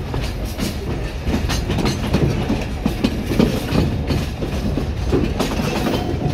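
Alishan Forest Railway hinoki-wood train rolling along narrow-gauge track, heard from aboard: a steady rumble with irregular clacks and knocks of the wheels over the rail joints.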